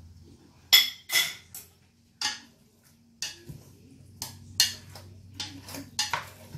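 Chopsticks clinking and knocking against a stainless steel pot while chicken pieces are turned in their marinade: about a dozen sharp, irregular clinks.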